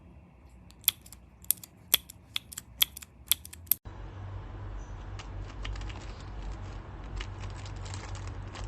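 Gateron mechanical keyboard switches on a keychain tester being pressed and released, giving sharp separate clicks. After a cut about four seconds in, quicker and fainter clicking runs on over a low hum.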